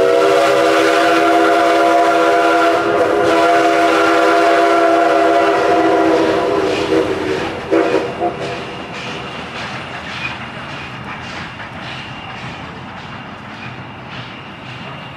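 Steam whistle of the 1923 ALCO 0-6-0 steam locomotive CNJ 113: one long blast of about seven seconds that slides up in pitch as it opens, then a short blast about eight seconds in. After it the passing train's rhythmic beat fades as it moves off.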